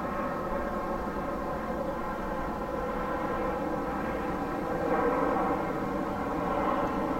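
Steady drone of a large ship's engines and machinery: a hum of many pitches over a low rumble that swells slightly about five seconds in.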